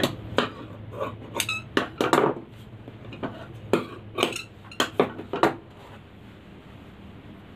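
Steel tailor's scissors clicking as they snip a thread end, with sharp metallic clinks of the scissors and small metal tools being handled and set down on a wooden sewing table. The clicks come in an irregular string, one with a brief ring, and stop about five and a half seconds in.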